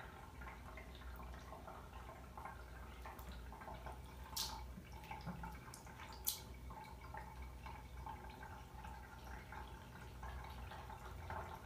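Faint trickle of water from a cat's drinking fountain over a low steady hum, with two sharp clicks about four and six seconds in.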